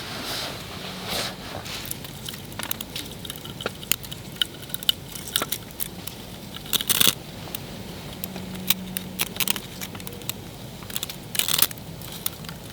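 Dry tinder crackling and crunching as it is handled to light a fire with char cloth, with scattered sharp clicks and two louder brief scraping bursts, about seven and eleven and a half seconds in.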